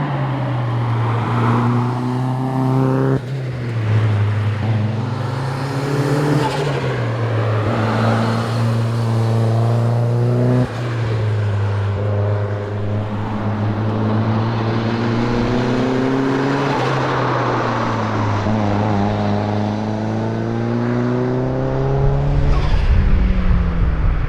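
Mazda MX-5 SE's turbocharged four-cylinder engine driven hard at competition pace. The revs climb through the gears with quick upshifts about three and eleven seconds in, then fall away twice under braking and downshifts before pulling again.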